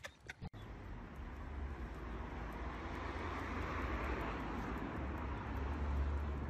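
Steady outdoor background noise with a low rumble, building slightly, after a brief click about half a second in.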